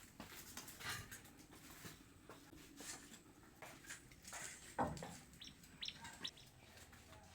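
Faint scattered clicks and knocks, with a few short bird chirps a little past the middle.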